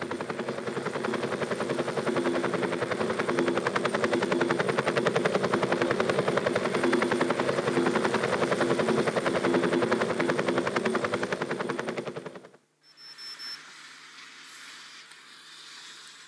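Rotors of a multirotor drone buzzing steadily in flight, played back from a video over the hall's speakers; the sound cuts off suddenly about twelve seconds in, leaving quiet room tone.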